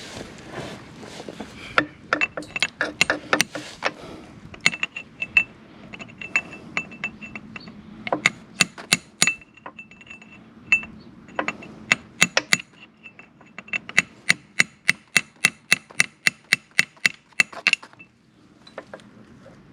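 Metal hand tools working on a motorcycle's stripped oil drain bolt: a series of sharp metallic clicks with a ringing tone. They come irregularly at first, then in a fairly even run of about four a second, and stop near the end.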